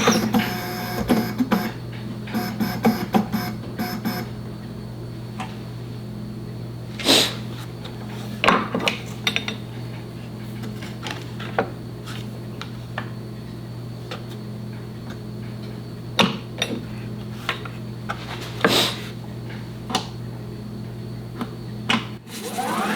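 Scattered knocks and clicks, as of wood and tools being handled on a workbench, over a steady low hum. A whine begins to rise just before the end.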